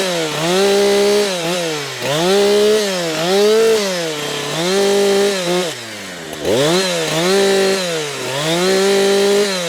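Two-stroke chainsaw revved to full speed in a run of short bursts, dropping back briefly between them and once to a low idle about halfway, as it nibbles a cut into a tree trunk held under tension.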